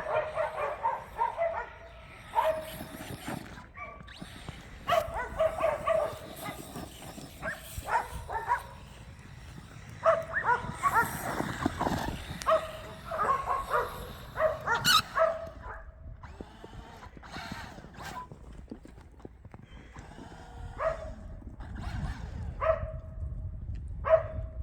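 A dog barking and yelping in repeated short bursts, with a lull for a few seconds past the middle.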